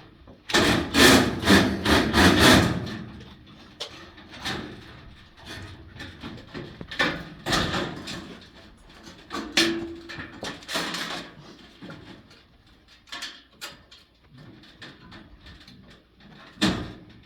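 Knocking and clattering of hands-on work installing metal-clad (MC) cable: a dense run of loud knocks and rattles in the first few seconds, then scattered knocks and clicks.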